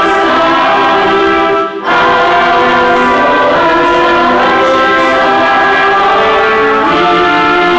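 Mixed choir singing a Polish Christmas carol (kolęda) in sustained chords, with a brief break about two seconds in before the next phrase.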